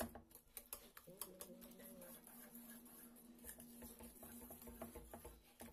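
Faint, irregular clicks and scrapes of a wire whisk against a stainless steel pan, stirring thick yema custard.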